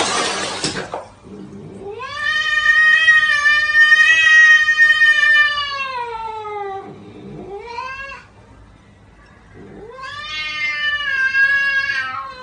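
Cat's long, drawn-out yowls (caterwauling): one lasting about five seconds, a short one, then another of about three seconds. Before them comes a burst of harsh, hiss-like noise in the first second.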